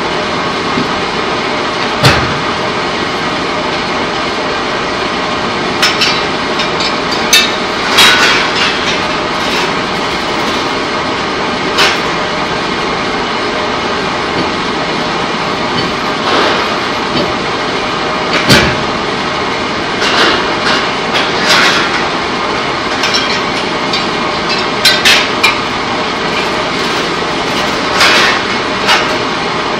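Steady loud machinery din of a pipe-coating line, broken by about a dozen sharp metal clanks and bangs at irregular intervals.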